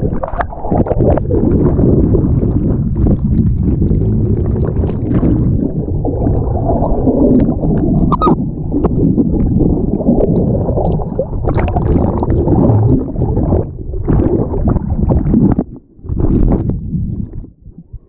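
Churning water of a pool's wild-water river channel heard from underwater: a dense low rumble with scattered clicks and bubbling. It drops away sharply twice near the end.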